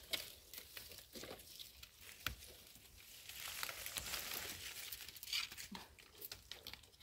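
Rustling and crinkling with scattered sharp snaps and clicks from dry forest leaf litter and undergrowth being moved through and handled. The rustle grows louder for a stretch from about three to five and a half seconds in.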